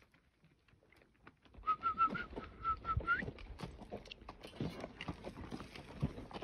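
Horse walking on rocky, gravelly ground, its hooves knocking and scuffing, starting about a second and a half in. About two seconds in comes a quick run of short whistled notes on one pitch that ends in a rising slide.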